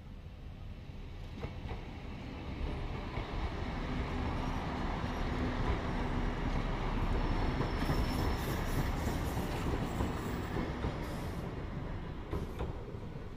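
A passenger train passing by on the track, its rumble building to a peak about eight to ten seconds in and then easing off. Sharp, high screeching and clanking from the wheels on the rails near the loudest point.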